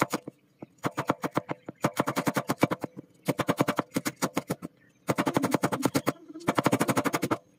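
Chinese cleaver chopping shallots on a wooden chopping board: quick runs of rapid knocks of the blade striking the wood, broken by several short pauses.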